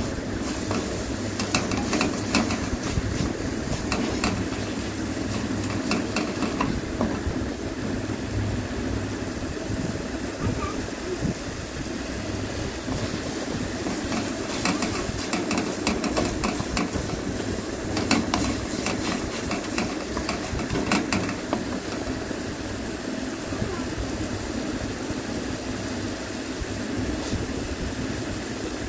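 Wooden spatula stirring and scraping a thick tomato-onion masala as it sizzles in an aluminium kadai, with repeated short scrapes and knocks against the pan. This is the stage of frying the masala down until it is cooked through.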